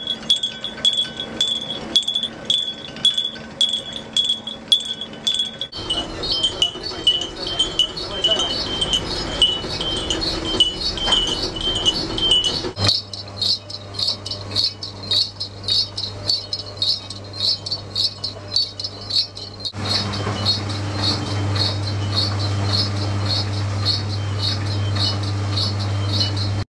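Revolving machine parts ticking in a steady rhythm of about three metallic clicks a second, each with a high ringing tone. The sound changes in sections, and a low steady machine hum joins about 13 s in and grows stronger about 20 s in.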